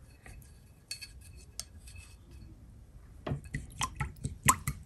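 Small clicks and light taps of paint being mixed on a palette, sparse at first, then a quick run of sharper taps in the second half.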